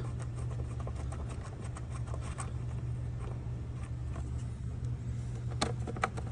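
Plastic engine air filter housing and its bolts being handled as the lid goes back on: scattered light clicks, with two sharper knocks near the end, over a steady low hum.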